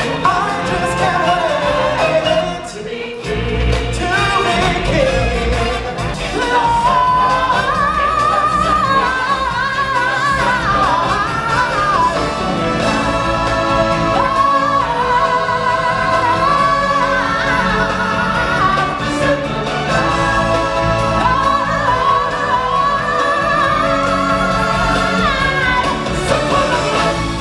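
Stage show music with singing, recorded from the audience seats. The music drops briefly about three seconds in, then comes back with a heavy bass under the sung melody.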